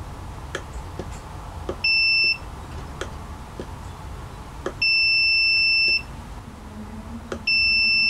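Digital multimeter's continuity tester beeping three times with a steady high tone: a short beep about two seconds in, then two longer beeps of about a second each. Each beep means the probes have found a closed connection between two points on the circuit board, with light clicks of the probe tips between beeps.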